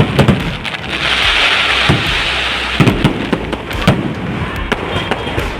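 Firecrackers going off in quick, irregular succession: sharp cracks and louder bangs over a continuous crackling hiss.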